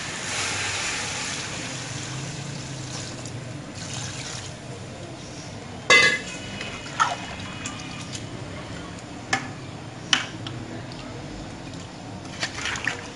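Water pouring in a steady stream into a metal pot of fried chicken curry, added to turn it into a thin gravy. A ladle clanks against the pot about five times, loudest about six seconds in.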